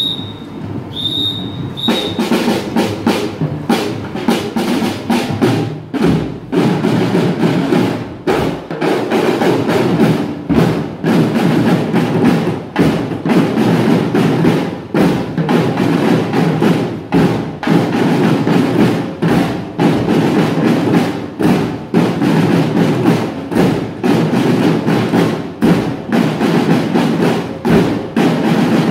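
School drum band of snare drums and bass drums playing a steady marching beat together, starting about two seconds in after two short high tones.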